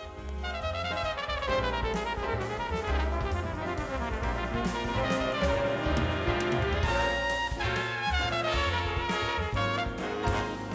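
Background jazz music with brass instruments playing a melody over a steady bass beat.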